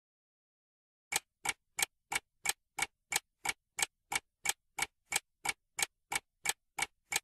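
Clock-ticking sound effect: even, identical ticks about three a second, starting about a second in after dead silence. It marks a pause for thinking.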